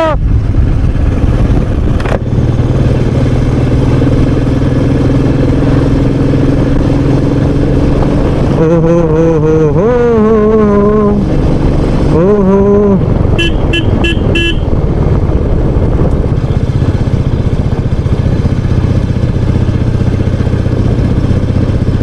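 Royal Enfield Meteor 350's single-cylinder engine running steadily at cruising speed, heard from the rider's seat under a steady rush of wind and road noise. About fourteen seconds in, a horn sounds a few quick beeps.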